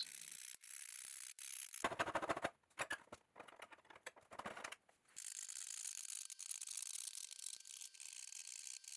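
Coping saw with a fine spiral blade cutting through thin wood veneer: a quick run of short scratchy strokes from about two seconds in to about five seconds, then fainter.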